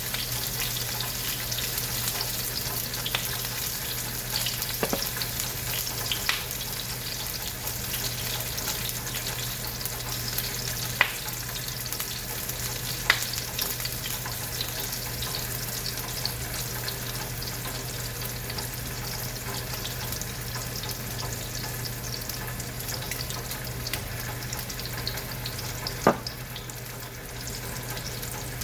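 Sausage frying in a pan: a steady sizzle, with a few sharp clicks of a utensil or popping fat, over a steady low hum.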